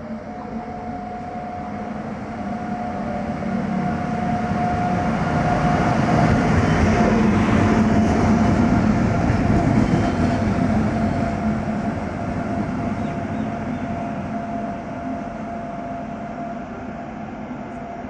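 WAP-7 electric locomotive running light through the station, its rumble and wheel-on-rail noise building to a peak as it passes close and then fading away. A steady high whine runs underneath.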